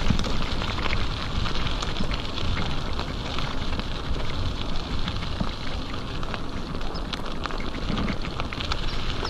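Mountain bike riding fast along a gravel path: tyres crunching and crackling over loose stones, with a steady low rumble underneath.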